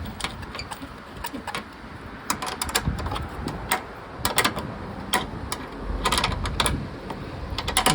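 Irregular metallic clicks and taps of a 12mm spanner tightening the nut on a tailgate strut's ball mount.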